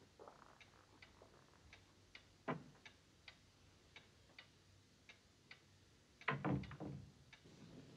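A clock ticking steadily, about two ticks a second, faint in a quiet room. There is a soft knock about two and a half seconds in, and a louder clunk and rattle of a wooden door being shut near the end.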